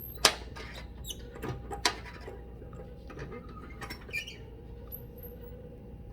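Channel-lock pliers gripping and flipping over a soldered pipe joint: a few sharp metal clicks and knocks, the loudest about a quarter second in and another near two seconds in, with lighter taps and small squeaks between, over a faint steady hum.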